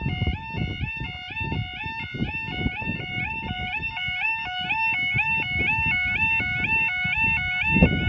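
Level crossing audible warning alarms sounding: rapidly repeating tones that each step up in pitch, from more than one alarm unit out of step with each other, over a low rumble.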